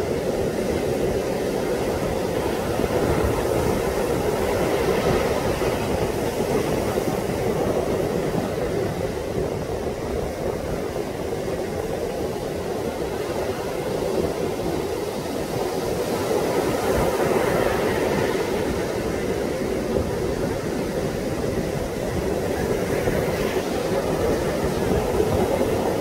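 Waves breaking on a sandy beach in heavy surf, a continuous rush that swells and eases every several seconds, mixed with strong wind buffeting the microphone.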